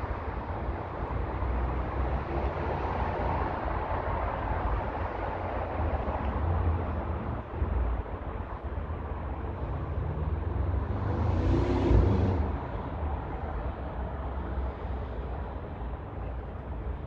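Steady low rumble of city traffic. About ten seconds in, a vehicle engine rises in pitch as it passes, loudest around twelve seconds in, then fades back into the background.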